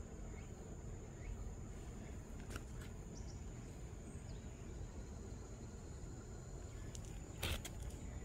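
Outdoor ambience: a steady high-pitched insect drone over a low rumble, with a few short sharp clicks, the loudest near the end.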